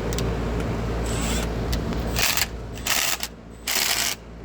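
Two cordless impact drivers run against each other, their impact mechanisms hammering in three short bursts from about two seconds in. A low steady hum lies under the first half.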